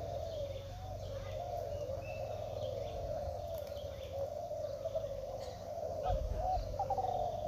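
Many caged derkuku (spotted doves) cooing at once, their overlapping coos merging into a continuous chorus.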